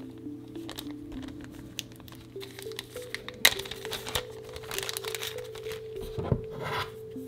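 Thin clear plastic bag crinkling and rustling in the hands, with a sharp crackle about halfway through, over steady background music.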